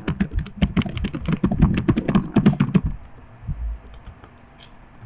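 Computer keyboard being typed on: rapid keystrokes for about three seconds, then the typing stops and only a few faint clicks remain.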